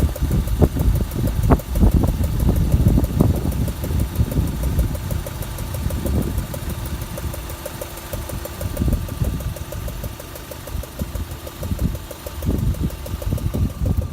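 Rover 75's 1.8-litre K-series four-cylinder petrol engine idling with a rapid, even ticking that sounds like noisy hydraulic lifters. The tick comes from combustion gases leaking past a loosely tightened spark plug in cylinder two.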